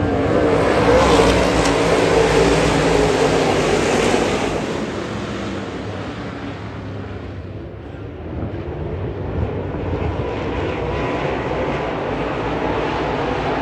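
Dirt late model race cars running on the track. The sound is loud at first, fades to a low about eight seconds in, then builds again as cars come back around.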